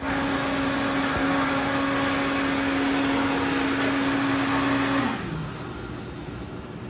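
An electric motor running steadily with a strong hum, then switched off about five seconds in, its pitch dropping as it winds down.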